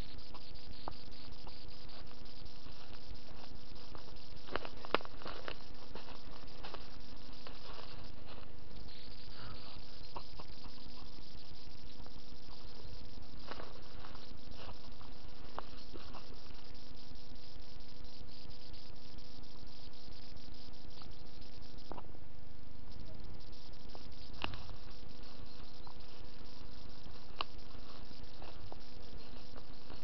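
Footsteps crackling now and then on dry leaf litter and twigs over a steady low hum and high hiss.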